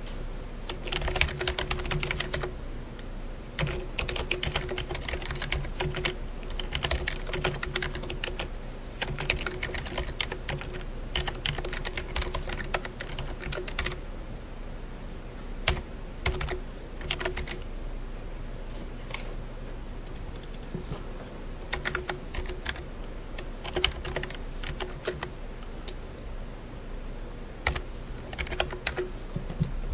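Typing on a computer keyboard in quick bursts of keystrokes with short pauses between them, over a steady low hum.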